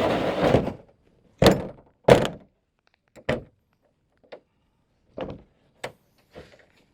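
A loud scraping rustle, then a string of about seven irregular thunks and knocks as objects are handled and set down. The knocks about a second and a half and two seconds in are the loudest.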